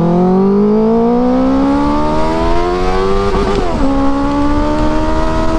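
Benelli TNT 600i's inline-four engine pulling hard under acceleration, its pitch climbing steadily, then dropping with an upshift about three and a half seconds in and pulling on again.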